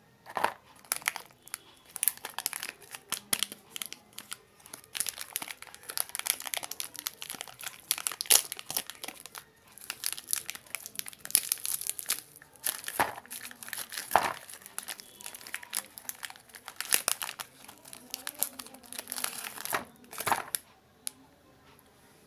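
Plastic biscuit packet wrappers crinkling and rustling as they are handled and torn open, in irregular crackling bursts that stop shortly before the end.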